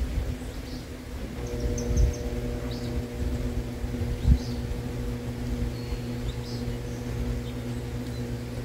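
Small birds chirping in short high calls every second or so, over a steady low hum and rumble with a couple of soft thumps.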